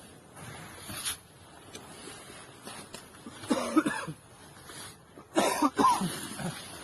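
A man's voice in two short, strained outbursts, about three and a half and five and a half seconds in, with a faint sharp crack about a second in.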